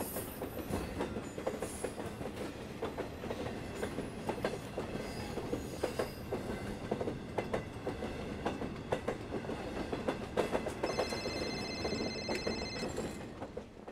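Train rumbling along, with the rapid clatter and knocking of its wheels and carriages. Near the end a steady high tone sounds for about two seconds.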